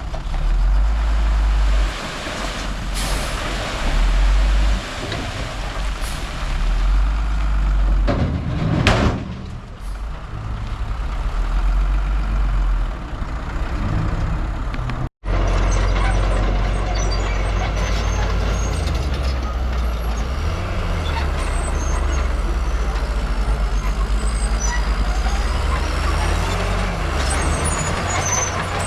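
Heavy diesel earthmoving machinery running under load, with a brief loud hiss about nine seconds in. The sound breaks off for an instant about fifteen seconds in, then the engines carry on.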